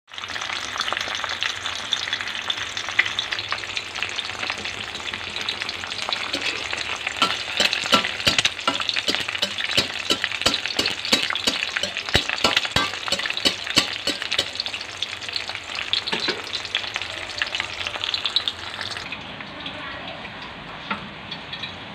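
An egg frying in hot oil in a steel wok: steady sizzling with many sharp spitting pops. The sizzle gives way to a quieter background near the end.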